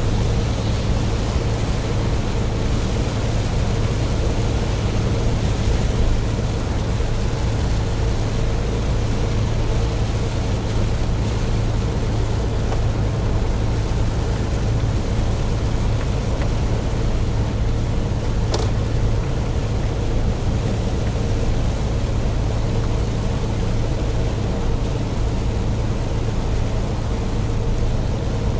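Mitsubishi Fuso heavy truck cruising in the rain: a steady diesel engine drone under an even hiss of tyres and rain on a wet road. A single short click sounds about two-thirds of the way through.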